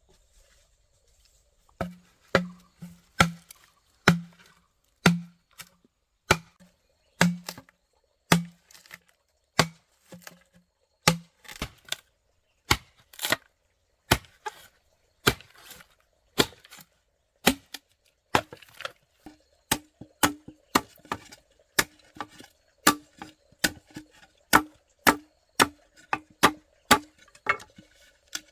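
A steady series of sharp tool blows, like chopping or hammering on wood, a little under two a second. Each blow carries a short low ring that steps up in pitch partway through.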